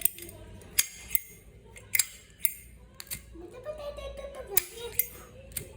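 Zippo lighter being handled: a series of sharp, irregular metallic clicks, about eight in under six seconds, from the hinged lid flipping open and snapping shut.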